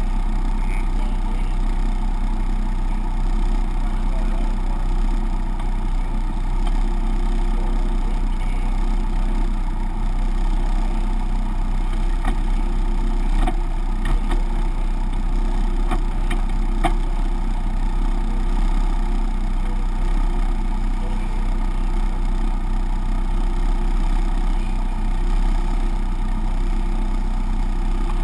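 Spec Racer Ford's four-cylinder engine idling steadily, with a few faint clicks about halfway through.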